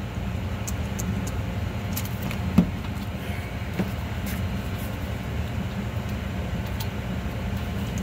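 Scattered small metal clicks and taps as a stuck pin is worked out of the neutral safety switch linkage on a Zamboni 546 ice resurfacer, the sharpest about two and a half seconds in. Under them runs a steady low mechanical hum.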